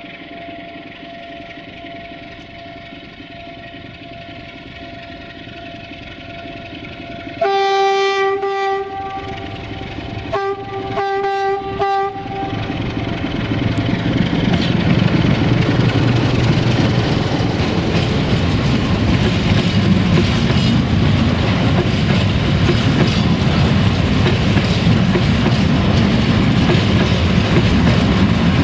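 ND2 diesel-electric locomotive approaching with a steady engine hum, then sounding its horn twice, a short blast about seven seconds in and a longer one about three seconds later. It then passes close by, followed by its loaded freight wagons rolling past in a loud, steady rumble.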